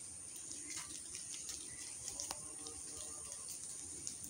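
Faint outdoor ambience after heavy rain: scattered light drips and ticks from wet foliage, one sharper tick about two seconds in, over a steady hiss and a thin high steady whine.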